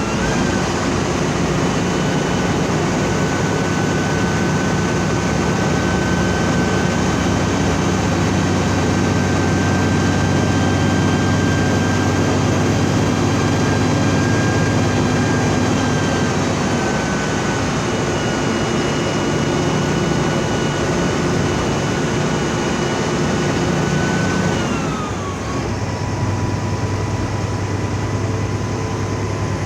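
Mercedes-Benz OF 1724L bus diesel engine running steadily, with a high whine over the engine note. About 25 seconds in, the whine glides down and the engine note drops, then both carry on at the lower pitch.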